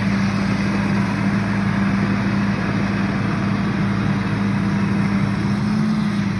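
Diesel engine of a yellow tracked land-clearing machine running steadily at working revs, a constant hum with no change in speed.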